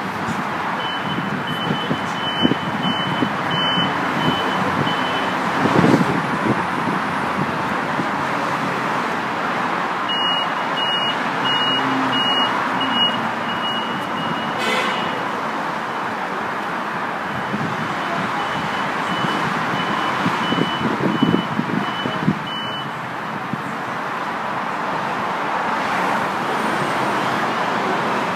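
Siemens Desiro electric train standing at the platform with its equipment running steadily. A high, thin electronic beeping sounds in three spells of short pulses, starting about a second in, again about ten seconds in and again near eighteen seconds, with one sharp click near the end of the second spell.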